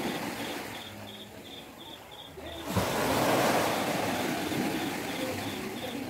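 Small sea waves washing onto a sandy beach. About halfway through, a wave breaks and the surf swells louder as it runs up the sand.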